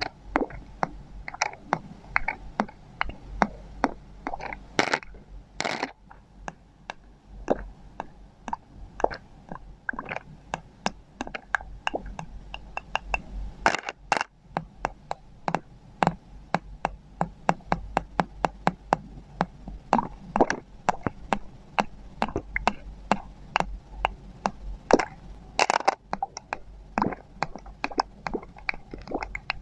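Ampoule bottles knocked and tapped in a steady, irregular stream of sharp taps, a few a second, many with a short pitched ring.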